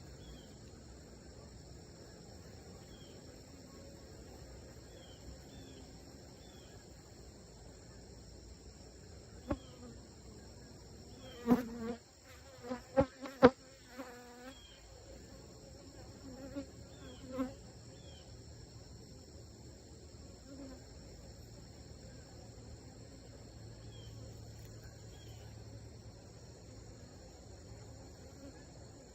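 Honeybees buzzing close past the microphone several times, loudest in a cluster about eleven to fifteen seconds in, over a steady high-pitched insect drone.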